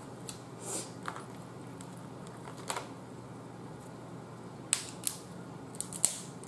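Boiled snow crab legs being snapped and cracked apart by hand: a series of sharp shell cracks, the loudest bunched in the last two seconds. The crab is overcooked, which she says breaks it up too much.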